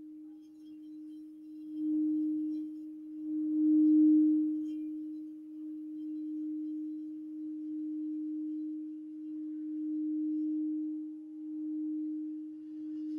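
Iridescent crystal singing bowl played with a wand, giving one steady, pure ringing tone with a faint higher overtone. The tone swells and fades several times and is loudest about four seconds in.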